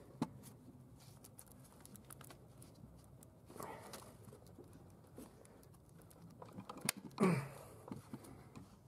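Faint clicks, ticks and rustling of gloved hands working among plastic wiring connectors on an engine's coil packs and fuel injectors, with a sharp click just after the start. A short voice sound falling in pitch comes about seven seconds in and is the loudest thing heard.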